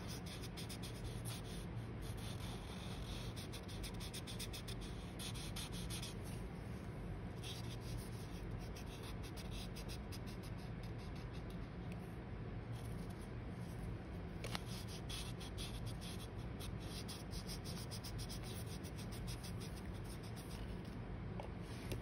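Felt-tip marker rubbing back and forth on paper with the broad end of its tip, quick repeated strokes as a large area is colored in.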